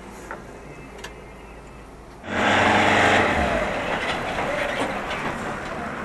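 Coach bus engine: a low steady hum, then about two seconds in a sudden, much louder rush of engine noise as the bus moves off, easing off gradually.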